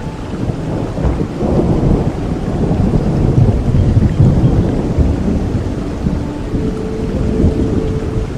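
Steady rain with a long, deep roll of thunder that builds about a second in, is loudest in the middle, and slowly dies away.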